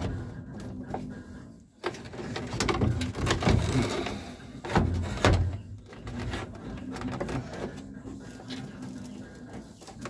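Plastic gauge cluster housing being pushed and worked into the dash by hand: scraping and rubbing with a run of knocks and clicks of plastic against the dash, loudest a few seconds in.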